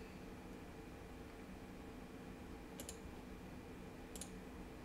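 Faint computer mouse clicks, two quick double clicks about three seconds in and again near the end, over quiet room tone with a low steady hum.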